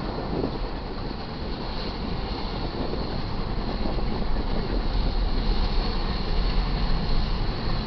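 Double-stack intermodal container cars of a freight train rolling past: a steady rumble of steel wheels on rail with a deep low undertone, growing a little louder about four seconds in.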